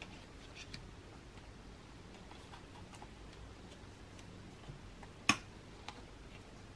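Tarot cards handled by hand: a few faint clicks, then one sharp click a little past halfway, with a softer one just after.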